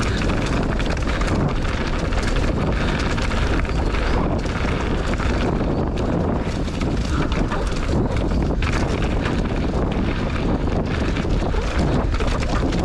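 Wind buffeting the microphone over the steady rumble of a mountain bike rolling down a rough dirt trail, with many small rattles and knocks throughout.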